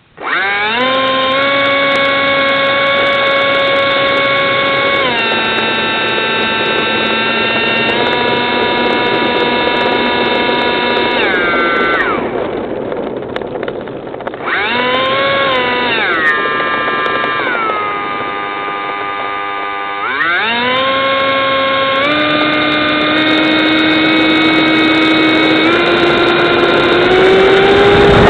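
Electric ducted fan of a Freewing Yak 130 RC jet whining as it spools up suddenly, then stepping up and down in pitch with the throttle. It winds down to a low whine about halfway through, spools back up, and climbs in steps near the end.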